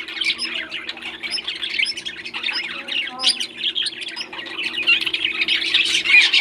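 Several parrots chattering and squawking with many overlapping short calls, continuously, over a steady low hum.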